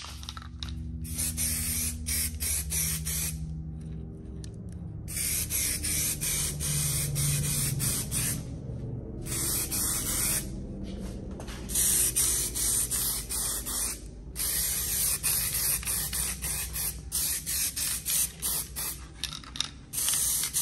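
Aerosol can of 2K primer spraying in repeated short passes, the hiss stopping and starting every few seconds. Booth fans hum steadily underneath.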